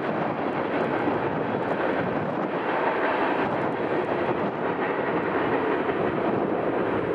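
Freight cars rolling past on the rails: a steady rumble and rattle of wheels on track that holds at an even level.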